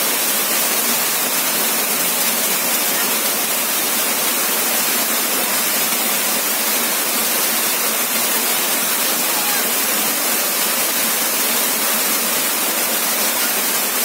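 Steady rush of flowing water from a small river, an even noise with no breaks.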